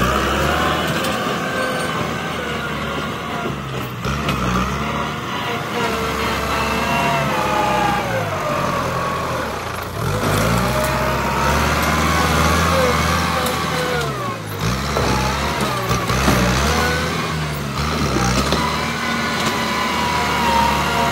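Kubota M8540 tractor's four-cylinder diesel engine running under load as it pushes soil with a front blade, its pitch rising and falling repeatedly as the throttle and load change.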